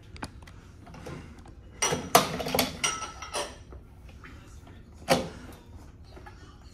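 Metal gym equipment clinking and clanking in a handful of short, sharp knocks, the loudest about two seconds in and again about five seconds in.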